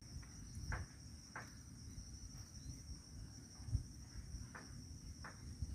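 Insects chirring in a steady high-pitched drone, over a low rumble with a few soft knocks.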